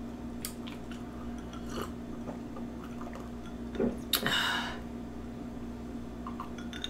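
Orange juice being sipped and swallowed from a glass: soft wet mouth and swallowing sounds, with a louder one about four seconds in.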